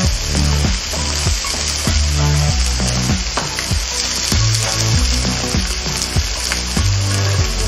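A beef rib steak and sliced vegetables sizzling on an electric contact grill, a steady hiss, with background music underneath.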